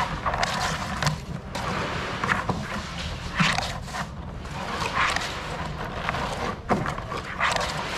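Wooden cable reel of steel wire rope turning on a concrete floor as the wire is pulled off it: a scraping, rattling rumble that swells every second or so.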